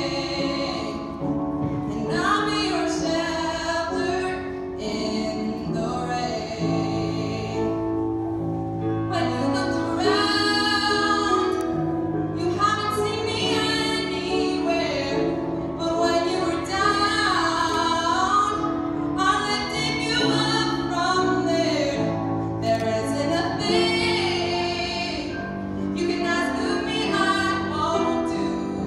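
A young woman singing a ballad solo with piano accompaniment, holding long notes.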